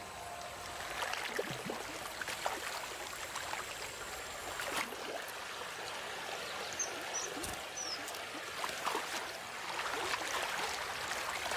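Shallow river water running and trickling over stones, a steady rushing with scattered small splashes and clicks. Three short high chirps come about seven seconds in.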